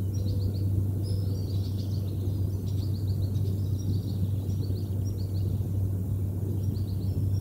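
Small songbirds singing: quick runs of short, high chirped notes, repeated again and again. Underneath runs a steady low hum.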